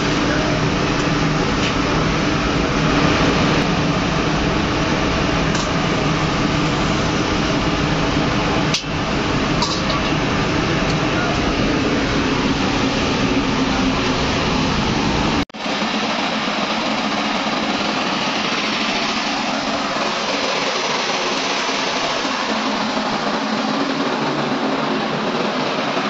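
Steady factory machine noise with a low droning hum. About halfway through the sound breaks off for an instant and goes on without the low hum.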